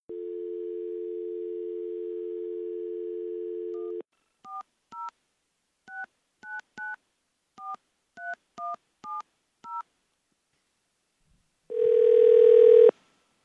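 Telephone dial tone held steady for about four seconds, then a number of about ten digits dialed on touch-tone keys as short two-note beeps. Near the end comes a single ring of the ringback tone, the loudest sound, as the called line starts ringing.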